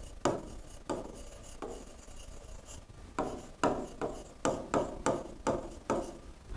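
Pen writing on an interactive display board: a string of short scratchy strokes and taps. They come sparsely at first, then quickly, several a second, from about three seconds in.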